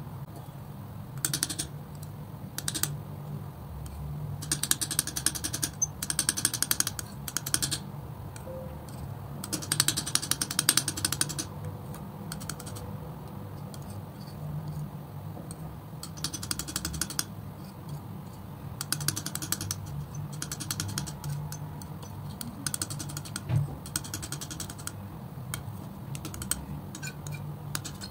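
Metal palette knife scraping and spreading thick acrylic paint across a flat board, in repeated strokes of about a second each with a fine, rapid ticking texture. A steady low hum runs underneath.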